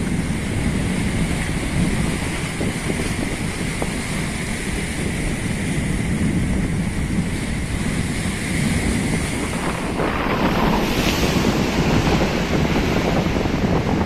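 Ocean surf breaking and washing over shore rocks, with wind buffeting the microphone; the wash grows louder about ten seconds in.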